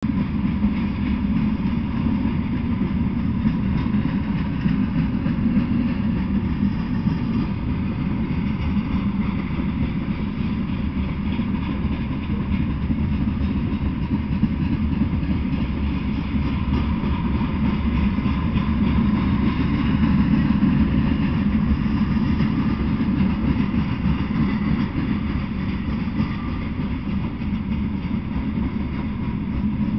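Freight train of open-top hopper and gondola cars rolling past close by, its steel wheels on the rails making a steady, unbroken rolling noise that is mostly low.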